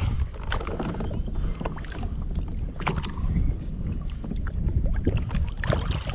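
Wind rumbling on the microphone, with scattered water splashes and knocks around a kayak as a bass is lowered back into the water; the fish splashes near the end as it is released.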